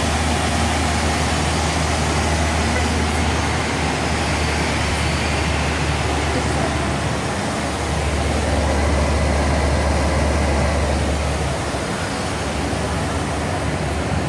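Steady cabin noise of a Boeing 737 jet in flight: an even rush of engine and airflow noise with a low hum underneath.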